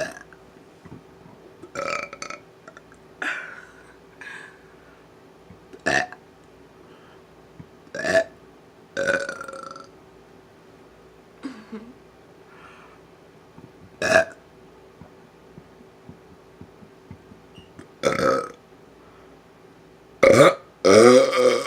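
A person burping on command, deliberately and repeatedly: about nine short separate burps every one to four seconds, with the longest and loudest near the end.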